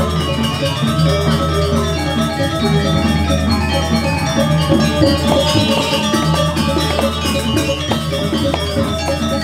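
Balinese gamelan playing: bronze metallophones ringing in dense rhythmic patterns over drums.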